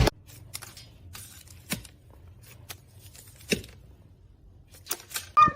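A few scattered small clicks and taps, then a domestic cat starts a loud meow near the end.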